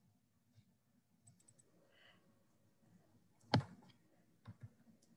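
Faint clicking at a computer while slides are being navigated: one sharp click about three and a half seconds in, two lighter ones about a second later, and a few faint ticks earlier, over a low room hum.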